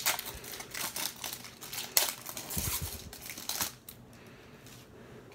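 Foil trading-card pack wrapper crinkling and crackling as it is torn open by hand and the cards are pulled out. There is a soft thump about two and a half seconds in, and the crinkling stops about three and a half seconds in.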